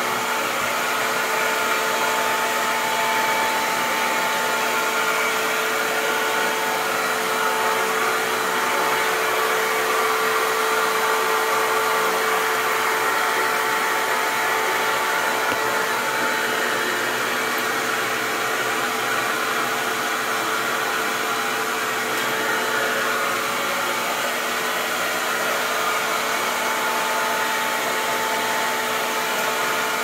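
Titan T1400 canister vacuum cleaner running steadily: an even rush of air with a steady motor whine over it.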